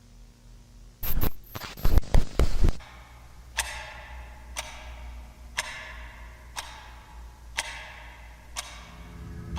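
A quick cluster of loud noise bursts about a second in, then a clock ticking steadily once a second, each tick ringing briefly. A low drone comes in near the end.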